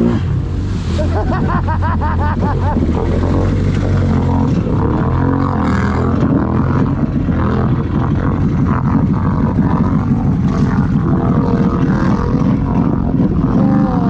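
ATV engine running hard through deep water and mud, revving up and down in the first few seconds and then pulling steadily, with water and mud splashing around the machine.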